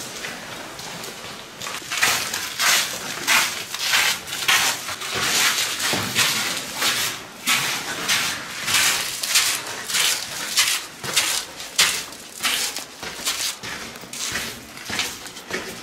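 Footsteps crunching over grit and debris on a floor, an uneven run of steps about two a second.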